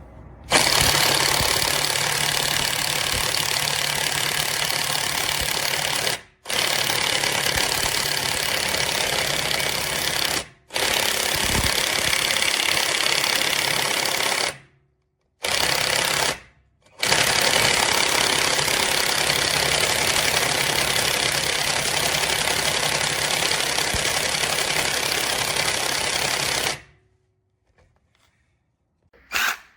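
AVID Power 20V brushless cordless 1/2-inch impact wrench hammering in five long trigger pulls with short pauses between them; the last run is the longest and stops abruptly.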